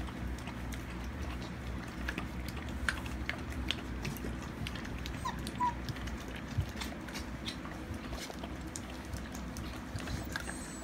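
Young Alaskan malamute puppies squirming and nuzzling on a blanket: soft rustling and small scattered clicks, with one brief faint squeak a little past halfway, over a steady low hum.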